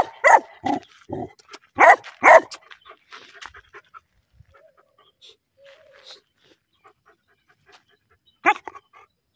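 Black Labrador retriever barking: about five short, loud barks in quick succession, then a pause and one more bark near the end.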